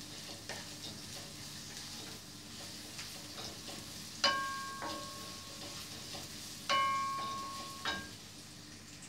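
Diced onions sizzling in oil in a frying pan, stirred with a wooden spatula while being sautéed to golden brown. Twice, about four and seven seconds in, a metallic clank rings out and fades over about a second.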